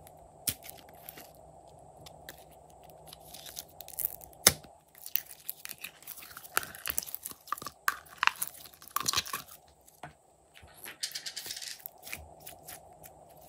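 Clear red slime squeezed and peeled out of a ridged plastic container, giving sticky crackling and popping clicks as it pulls away from the plastic. The crackling is busiest through the middle, with another short burst near the end.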